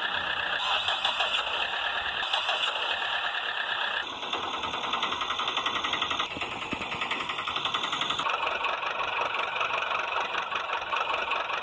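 Engine-like motor sound with a fast rattle, running steadily and changing abruptly in pitch and tone about four, six and eight seconds in.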